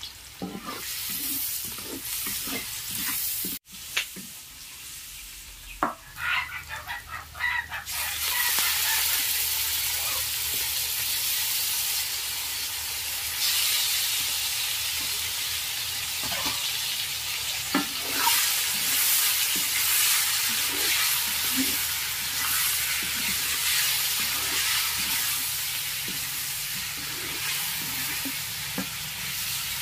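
Pork and onions frying in hot oil in an aluminium wok, with a wooden spatula stirring and tapping against the pan. The sizzling gets much louder about eight seconds in, once the pork is in the oil.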